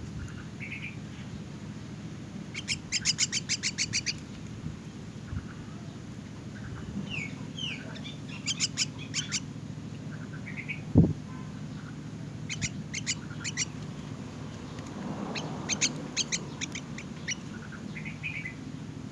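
Young myna calling in several quick trains of short chirps, about ten a second, with scattered single chirps between them. One sharp thump about 11 s in, over a steady low hum.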